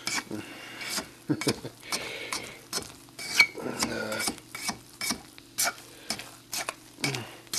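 A fork stirring thick banana bread batter in a bowl: irregular scraping and clicking of the tines against the bowl, about two strokes a second, over the soft wet sound of the batter.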